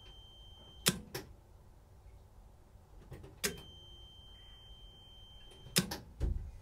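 Stop solenoid on a Beta Marine JD3 diesel's Stanadyne DB4 injector pump giving sharp clicks as the ignition is switched off, on, and off again, its freed fuel cutoff lever now moving. A steady high tone sounds while the ignition is on, and there is a low thump near the end.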